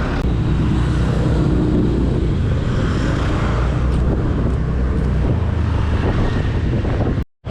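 A vehicle's engine running steadily while on the move, with road and wind noise on the microphone; the sound cuts out for a moment near the end.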